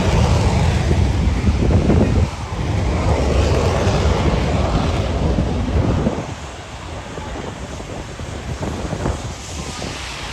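Jet engine rumble from the Red Arrows' BAE Hawk T1 jets, mixed with wind buffeting the microphone. The rumble drops away about six seconds in, leaving mostly wind noise.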